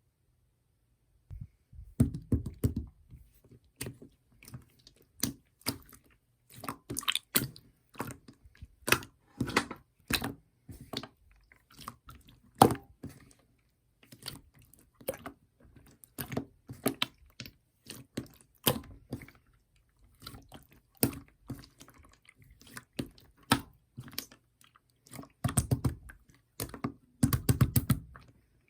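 Clear slime being handled: a steady run of irregular sticky clicks and pops, with wetter, fuller squelches about two seconds in and again near the end.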